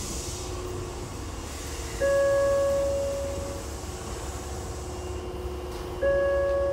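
An electronic chime, a single clear bell-like tone that starts suddenly and fades away, sounding twice about four seconds apart, over the low steady hum inside a train car.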